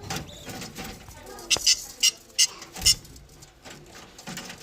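Pet birds giving a quick run of about five short, high-pitched chirps or squeaks.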